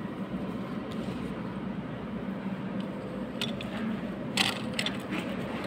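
A steady low hum of running machinery, with a few light metallic clicks and knocks past the middle, the loudest a short cluster about four and a half seconds in, as a pump's bearing housing is turned by hand.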